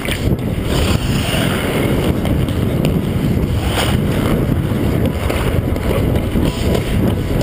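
Wind buffeting the microphone of a camera worn by an ice skater gliding across the rink, with the skate blades scraping on the ice and a sharper scrape about four seconds in.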